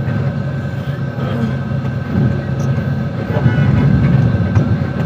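Engine and road noise of a passenger vehicle creeping through traffic, heard from inside it. A steady low rumble, a little louder in the second half.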